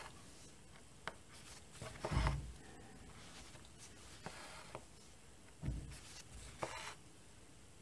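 Quiet handling sounds of cross-stitch work: fabric rustling and light taps as the hoop and Aida cloth are handled, with two dull bumps, about two seconds in and again just before six seconds.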